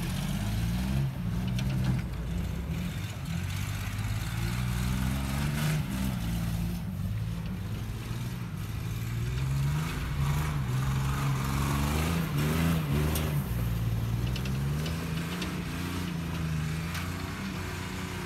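Pickup truck engine revving hard, its pitch rising and falling again and again as the truck spins donuts in a dry dirt field.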